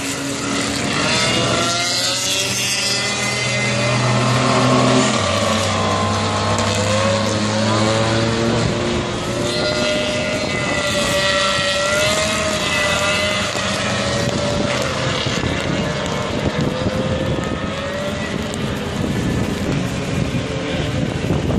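Small-bore open-wheel race cars passing one after another, engine notes rising and falling in pitch as they accelerate and go by.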